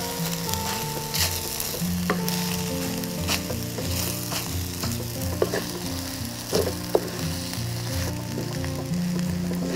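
Rice sizzling as it stir-fries in a pan over low heat, with a spatula scraping and knocking against the pan several times.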